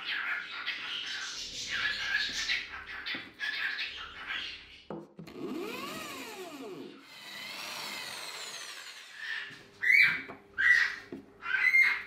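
A handheld electric drill spins up, runs and winds down over a few seconds while boring into a pine board. Pet birds chirp at the start, and several short, loud squawks come near the end.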